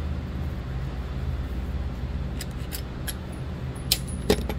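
A few sharp clicks from a Glock pistol and its magazine being handled, the loudest two near the end, over a steady low hum.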